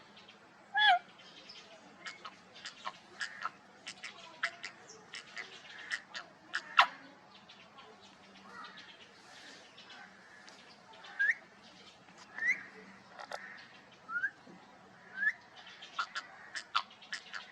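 Pet parrot calling: one meow-like cat imitation about a second in, then scattered short clicks and chirps, and a handful of short rising whistled chirps in the second half.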